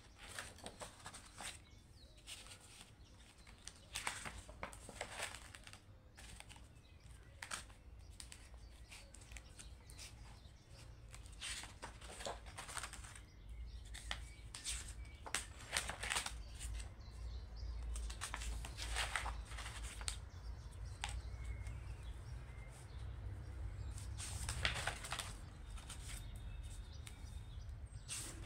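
Paper pages of a ring-bound project file turned and handled several times, each turn a short rustling sweep of paper.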